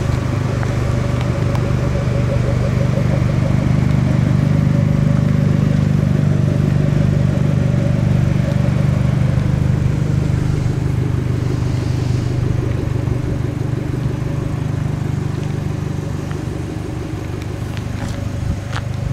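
Fiat 500 Abarth's 1.4-litre turbocharged four-cylinder idling steadily through a tuned aftermarket exhaust, a deep, even burble.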